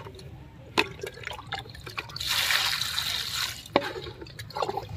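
Water poured over taro corms in a plastic colander, splashing and dripping through the mesh. A pour of about a second and a half starts about two seconds in. Two sharp knocks come, one near the start and one near the end.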